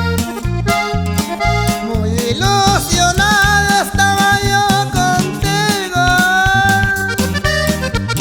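Accordion music over a steady, repeating bass beat. From about two seconds in, a long held melody line slides and bends in pitch.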